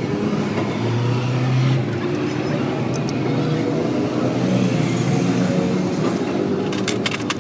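Six-cylinder truck engine running and being revved twice, its pitch rising and settling each time. A few sharp clicks near the end.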